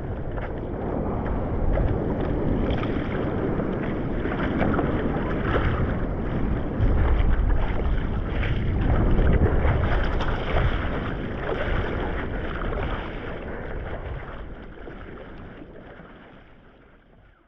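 Rumbling wind noise buffeting the microphone over a steady outdoor rush, fading out over the last few seconds.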